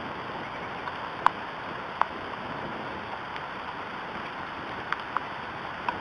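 Steady rain falling on the nest and surrounding trees. A few sharp taps of drops land close by: one loud one about a second in, another at two seconds, and a small cluster near the end.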